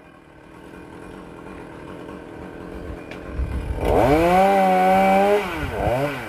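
Chainsaw engine running at low revs, then revved up to full throttle about four seconds in, held briefly, and let back down, with a short blip near the end.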